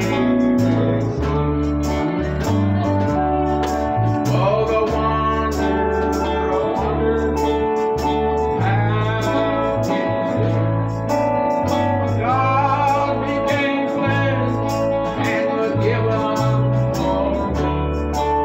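Live acoustic band playing a country-style song: strummed acoustic guitars and a keyboard over a stepping bass line, with voices singing.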